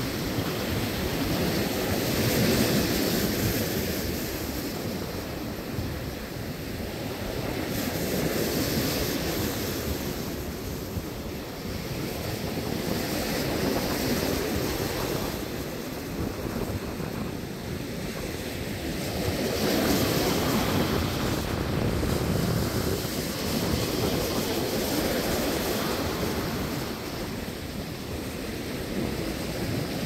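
Ocean surf washing up a sandy beach, a steady rushing wash that swells and eases every few seconds as each wave breaks and runs up the sand.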